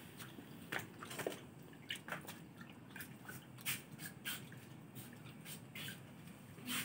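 Large pond fish, pangasius catfish and giant gourami, gulping and splashing at the water surface: a series of irregular wet smacks, plops and drips.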